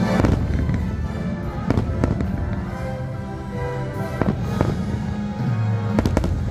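Fireworks shells bursting in several sharp bangs, some in quick pairs, over orchestral show music.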